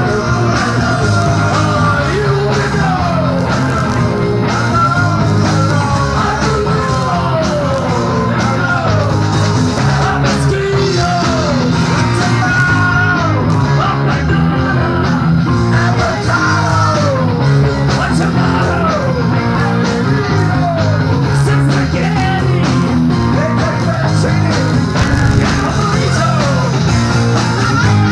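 Live rock band playing, with drums, bass guitar, electric lead guitar and keyboards, and a man singing lead vocals into a microphone.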